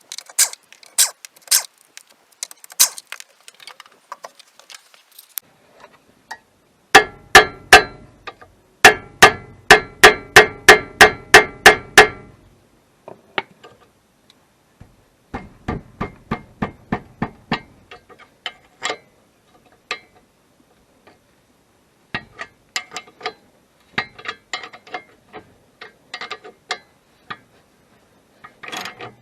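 Hand tools working on car parts: runs of sharp, evenly spaced metallic clicks and knocks, about four a second, with two dense runs near the middle and scattered knocks later.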